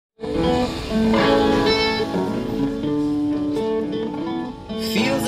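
Acoustic guitar played as a song's intro, a run of picked and strummed notes that starts a moment after the opening silence.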